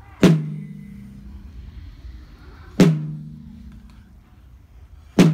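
A large drum struck with a padded mallet, three beats about two and a half seconds apart, each ringing briefly with a low boom.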